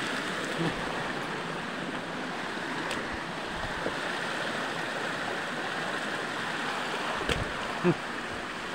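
Shallow stream running over and between rocks, a steady rush of water. A single sharp knock sounds about seven seconds in.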